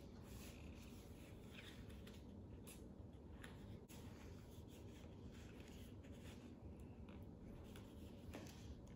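Near silence with faint, scattered rustles and scrapes of paper stickers being peeled off their backing sheet and pressed onto construction paper.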